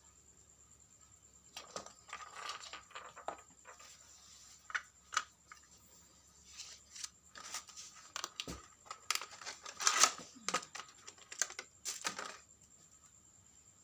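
Hands handling small parts: irregular rustling and crinkling with scattered clicks and taps, coming in two spells, the loudest burst about ten seconds in.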